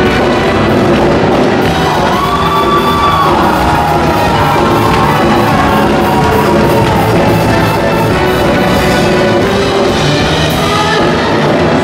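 Loud, upbeat quadrilha junina dance music with a steady beat, played for the dancers, with a few whoops and shouts from the performers and crowd.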